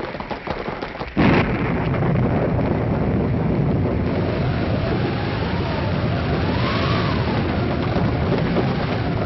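Thunderstorm sound effect. A rapid clatter of galloping hoofbeats is cut off about a second in by a loud thunderclap, followed by heavy, steady rain and a howling wind that rises and falls in pitch.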